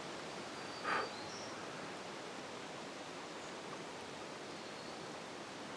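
Steady outdoor background hiss of the woods, with a few faint high bird chirps and one short, louder noise about a second in.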